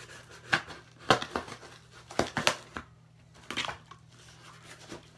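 A dull knife sawing and tearing through the taped seam of a cardboard shipping box, in a series of short, sharp rips and crackles; the blade is too blunt to cut cleanly.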